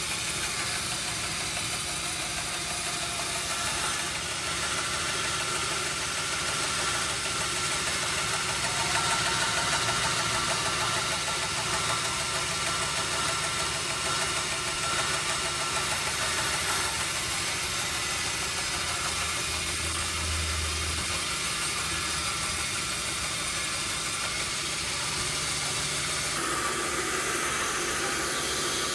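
Sawmill machinery running steadily, a motor hum under a broad hiss, with a short deeper hum about 20 seconds in and a change in the sound near the end.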